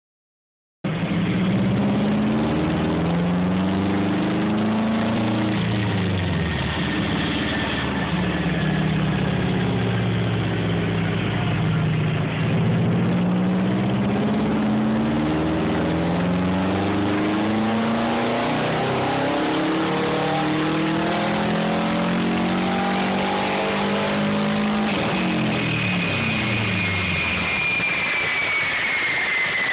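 2009 Subaru WRX's turbocharged flat-four engine running under load on a chassis dyno during tuning, its revs rising and falling, then climbing in a long pull before dropping off sharply about 25 seconds in. A high whine slides down in pitch after the drop.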